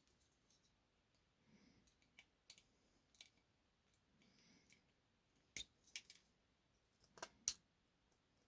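Scattered small, sharp clicks as the printed support bits are pushed out of a 3D-printed model tank's wheels with a small tool and snap away. The clicks are irregular, a few in the first half and louder ones in the second half.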